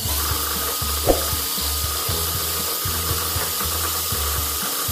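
Makita cordless drill spinning a sanding drum against the edge of the centre hole in a plywood disc, a steady motor whine, with one short click about a second in. Background music with a steady bass line plays underneath.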